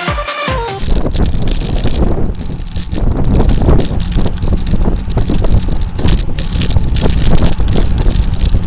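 Electronic dance music cuts off about a second in, giving way to loud wind buffeting on the microphone of a moving bicycle, with scattered clicks and rattles.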